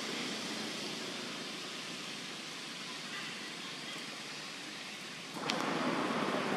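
Steady outdoor background hiss with no distinct source, jumping suddenly louder about five seconds in, where a single sharp click is heard.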